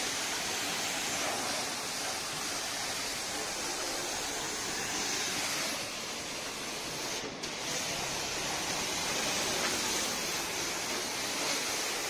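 Aimex pressure washer's high-pressure water jet spraying onto a van's body panels and wheel: a steady rush of spray that dips briefly about seven seconds in.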